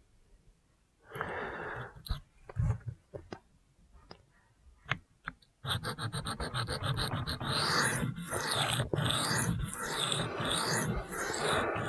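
A knife blade of Cruwear steel being stroked back and forth on a wet sharpening stone, working the second side of the edge. After a few light clicks and a single brief scrape, fast repeated rasping strokes start about halfway through and keep going.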